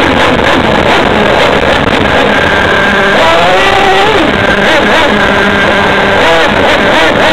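Small high-revving engine heard from a camera riding on the vehicle, its pitch rising and falling as the throttle is worked over rough ground, with heavy rumble and buffeting over the camera's microphone.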